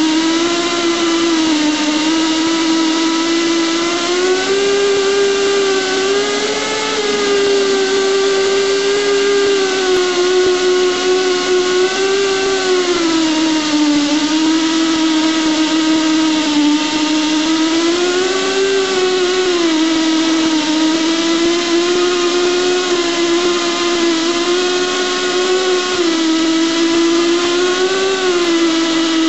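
Esco Prepzilla pipe end prep machine running and cutting a bevel on the end of a steel pipe: a steady motor whine whose pitch sags and recovers every few seconds as the cutter works.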